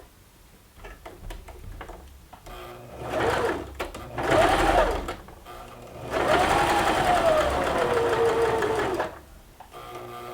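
Baby Lock sewing machine stitching in three runs, two short ones and then a longer one of about three seconds, its motor whine rising and falling as the speed changes. Light clicks of handling come before the first run.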